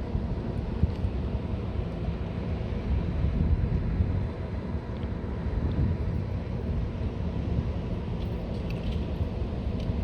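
Wind rumbling on the microphone, with a faint steady hum underneath.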